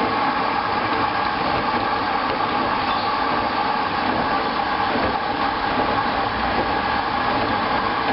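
Hoover washing machine running in its cool-down phase: a steady whirring rush with a few even tones.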